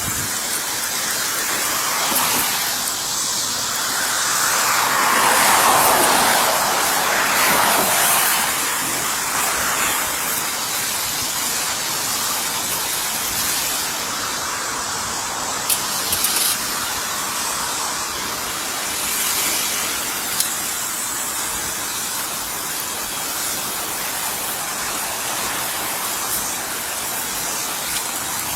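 Steady rushing road and wind noise of a moving car, swelling for a few seconds early on, as a passing vehicle would.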